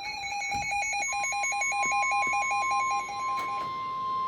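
Weather-alert tones: a fast pulsing electronic beep that stops about three and a half seconds in, with a steady single-pitch warning alarm tone (the 1050 Hz NOAA Weather Radio tone) coming in about a second in and holding.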